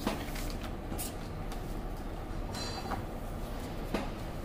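Scattered light clicks and knocks of hands handling connectors and wiring while mains supply is hooked up to an inverter AC circuit board, over a steady low hum. A brief faint high tone sounds a little past the middle.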